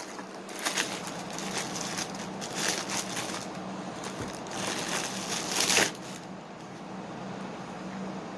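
A package being unwrapped: packaging crinkling and crackling in irregular handling bursts, loudest about five to six seconds in, then dying down, over a low steady hum.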